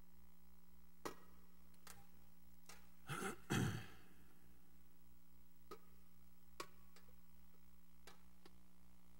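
A person clearing their throat once, about three seconds in, the loudest sound here. Around it are a few small sharp clicks and knocks over a steady hum and a faint, even low pulsing.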